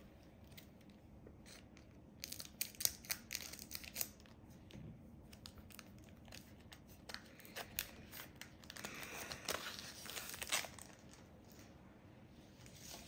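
Scissors snipping open the foil wrapper of a Pokémon booster pack, a quick run of sharp snips and crackles in the first few seconds. Then the wrapper crinkles and the cards rustle as they are pulled out of the pack, quietly.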